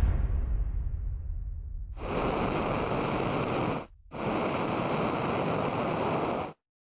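Animation sound effects: the low rumble of a bang just before fades away, then two long steady hisses of a spacecraft's thrusters firing as the capsule separates from its service module, with a short break between them and an abrupt stop.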